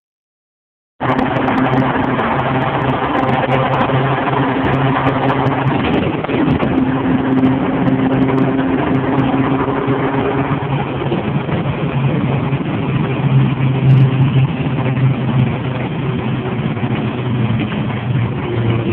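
City bus engine running steadily, its pitch shifting a little as it drives, starting about a second in.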